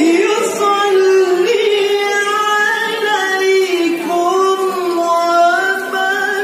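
A man's Quran recitation (tilawah) in melismatic style, amplified through a microphone, holding one long high ornamented line that wavers in pitch and dips about four seconds in before climbing again.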